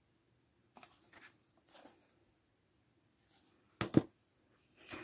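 Plastic DVD cases being handled: faint rustles and light taps, then two sharp clacks close together about four seconds in as a case is set down.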